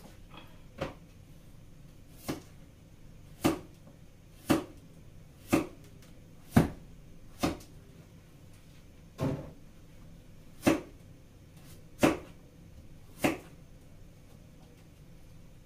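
Kitchen knife chopping vegetables on a plastic cutting board: about eleven separate cuts, roughly one a second and unevenly spaced, stopping a couple of seconds before the end.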